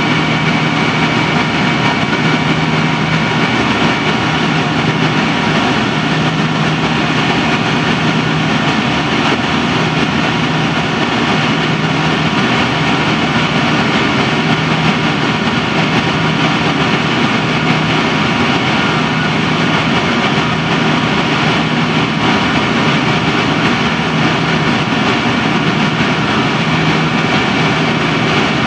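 Steady in-cabin noise of a Yakovlev Yak-42D airliner climbing after takeoff: rushing air and the drone of its three rear-mounted Lotarev D-36 turbofans. A low hum swells and fades every few seconds.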